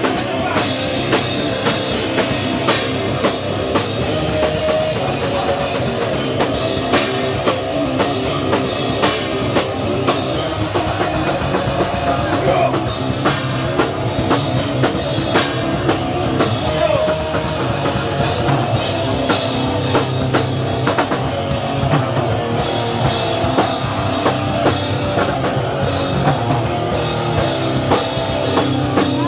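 A hardcore punk band playing live: fast, hard-hit drum kit with distorted guitars and bass.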